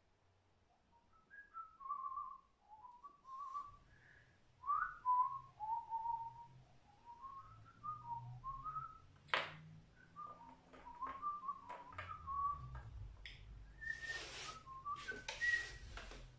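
A man whistling a wandering tune, with a few sharp clicks and taps from handling clay in the second half. Near the end the whistling stops and short scraping noises follow.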